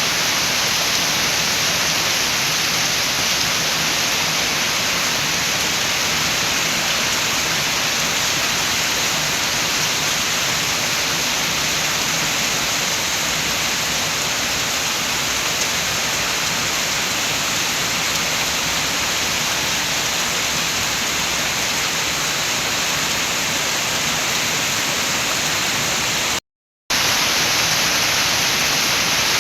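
Steady rain with wind, a dense, even hiss. It cuts out to silence for about half a second near the end, then resumes.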